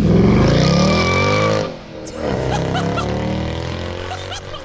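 A powerful car engine accelerating hard: the revs climb steadily, drop sharply as it shifts up about a second and a half in, then climb again through the next gear.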